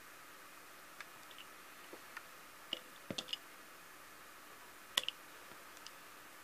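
Scattered light clicks and taps of die-cast model cars and the plastic decks of a model car transporter being handled, with a cluster of clicks around three seconds in and the sharpest pair about five seconds in, over a faint steady hiss.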